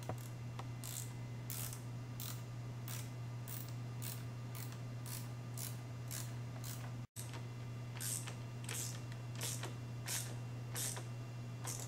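Hand ratchet wrench clicking in short runs, about two strokes a second, as exhaust mounting bolts are tightened, with a brief break about seven seconds in. A steady low hum runs underneath.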